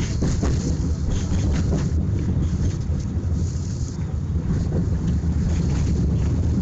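Tram in motion, heard from inside the passenger car: a steady low rumble of wheels on rails and running gear, with scattered brief clicks and rattles.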